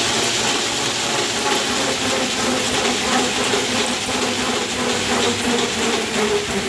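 Dog Trotter K9 slat mill turning under a running dog: its slats and rollers make a steady, rapid clatter like a rolling train.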